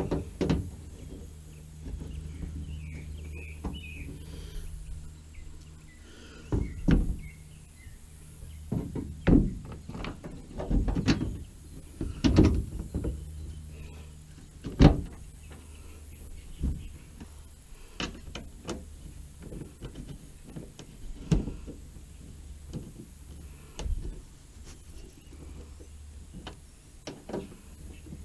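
Irregular knocks and clunks, a dozen or so spread unevenly, of a plastic mud flap and its fasteners being handled and pushed into place against a pickup's wheel well, over a steady low hum.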